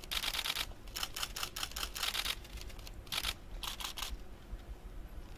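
Press cameras' shutters firing in rapid continuous bursts, several cameras at once, in a few volleys of quick clicks. They stop about four seconds in, leaving a low room hum.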